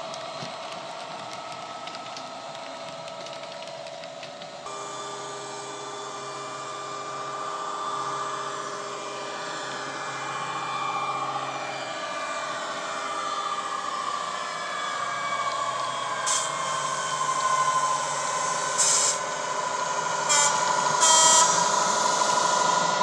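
ESU LokSound sound decoder in a Bachmann Class 66 model playing the Class 66's EMD two-stroke diesel engine through a small speaker: a steady engine note that steps up about five seconds in, then rises and falls in pitch as the locomotive drives. Near the end come a few short horn blasts and a brief hiss of air.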